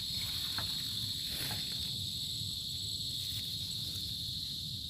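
Insects trilling: a steady, unbroken high-pitched drone, with a couple of faint rustles in the first second and a half.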